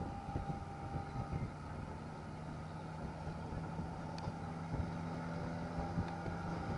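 Open-top safari jeep driving along a paved road: a steady engine drone mixed with road and wind noise.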